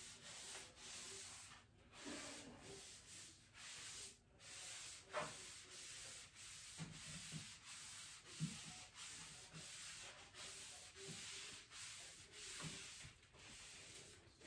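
Faint rubbing strokes, about two a second with brief pauses, as a paint-loaded applicator is wiped over the painted wood of a cabinet while a second coat of paint goes on, with a couple of light knocks.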